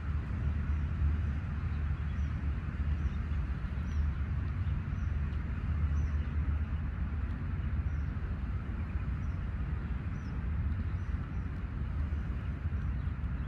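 Outdoor seaside ambience: wind rumbling on the microphone over a steady noisy background, with faint short high chirps about twice a second.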